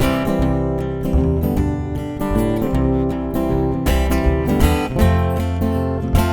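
Acoustic guitar strumming in a slow song with low bass notes underneath, an instrumental passage with no singing.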